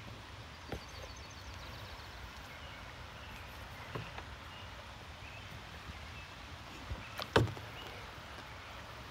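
Scattered knocks from a solo canoe being handled at a beaver dam as the paddler steps out into the water beside it, the loudest about seven seconds in, over a steady low background noise.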